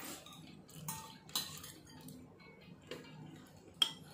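A few light clinks of a metal spoon against dishes while eating, about four spread out, the sharpest near the end.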